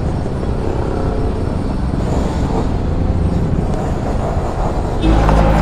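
Motor scooter running in town traffic, heard through a helmet-mounted microphone: a steady engine and road rumble. About five seconds in it gets louder, with a steady low engine note coming in.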